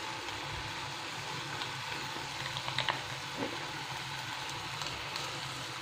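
Eggplant slices simmering in a pan of shallow salted water over a high gas flame: a steady hiss with scattered small pops and crackles, a cluster of them around the middle.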